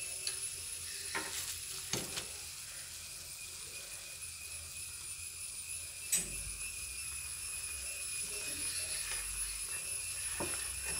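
Water boiling around instant noodles in a frying pan, a steady hiss, with a few light clicks of a steel spoon against the pan as the noodles are stirred.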